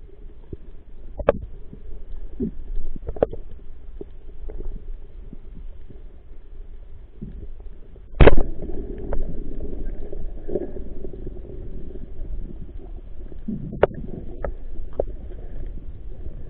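Underwater rumble with scattered sharp clicks. About eight seconds in, a band-powered speargun fires with one loud crack, followed by a few seconds of rattling noise.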